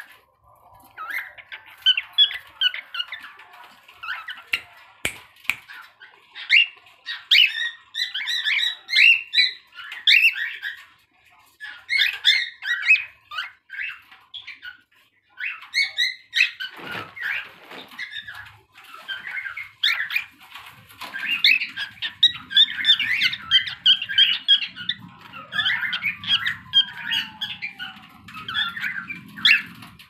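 Young grey cockatiel, about three months old, chattering in a fast run of short chirps and whistled notes: an early attempt at learning to whistle.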